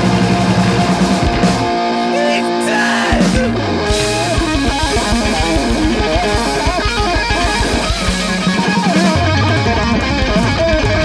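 Live rock band playing an instrumental passage: electric guitar, bass guitar and drums. A fast, evenly pulsing bass line comes in about four seconds in.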